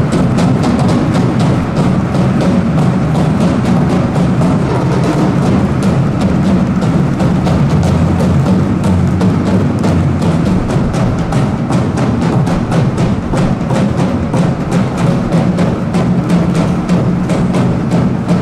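Music with a steady, fast percussion beat.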